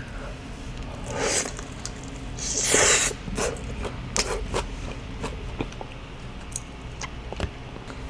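Close-miked eating sounds of sauced boneless fried chicken: two rustling, squishy swells about a second in and near three seconds, then scattered small wet clicks of chewing.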